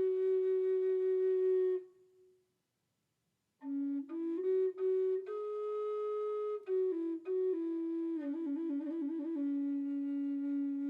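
Outro music: a slow solo melody on a flute-like wind instrument, long held notes with a short pause about two seconds in and a quick trill around eight seconds in.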